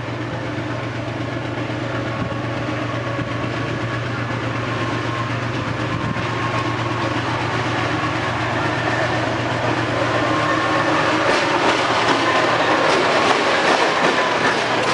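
GE U20C diesel-electric locomotives approaching, their engine drone growing steadily louder. Toward the end, clicks of wheels over rail joints start to come through.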